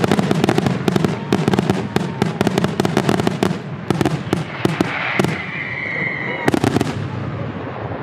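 Aerial fireworks going off in a dense, rapid run of sharp cracks and bangs that thins out near the end. A short whistling tone sounds about five seconds in.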